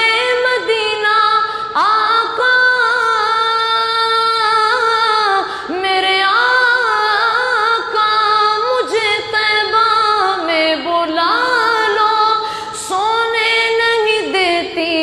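A boy singing an Urdu naat solo, with no instruments, drawing out long, ornamented notes that waver and slide in pitch, with brief breaths between phrases.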